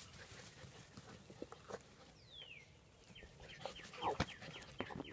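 Faint bird calls: a single falling chirp, then a quick run of short repeated notes, with one louder call near the end. Light clicks and taps are scattered through.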